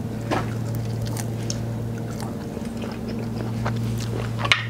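A person biting into and chewing a crispy air-fried chicken wing, with scattered crunching clicks and a sharp crunch near the end, over a steady low hum.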